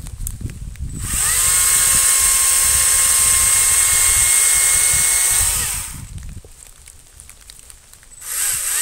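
Battery-powered chainsaw's electric motor spinning up about a second in and running as a steady high whine for about four and a half seconds while cutting a fallen branch, then winding down. Near the end it is triggered again in a short burst.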